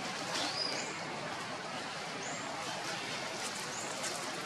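Outdoor ambience: a steady hiss with short, high chirps about every second or two, and a few faint clicks near the end.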